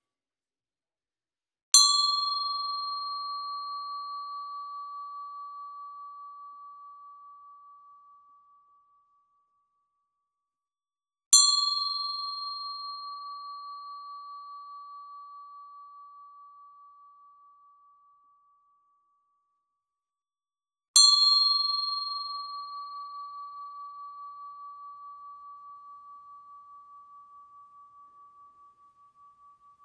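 A bell struck three times, about ten seconds apart, each ding a single clear high tone that rings out and slowly fades with a slight wavering, its brighter overtones dying away first.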